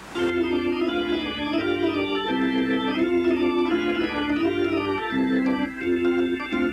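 Organ music, a light tune over held chords, cutting in abruptly.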